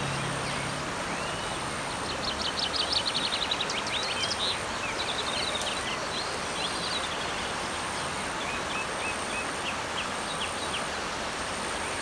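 Creek water rushing over boulders, a steady even rush, with small birds chirping above it and a rapid trill about two to four seconds in.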